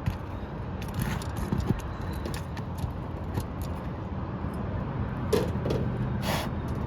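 Scattered metallic clicks and scrapes of hand tools working roofing nails and shingles loose, over a steady low rumble.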